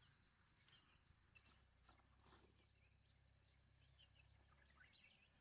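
Very quiet outdoor ambience with faint, scattered chirps of small birds in the distance.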